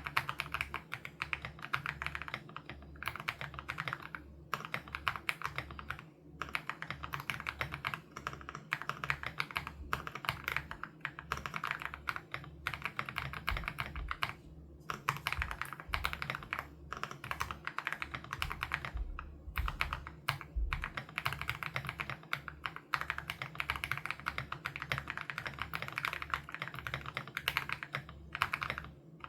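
Continuous fast typing on an Aula F87 Pro mechanical keyboard with HMX Sarcophagus switches: a dense run of keystrokes broken by short pauses every few seconds.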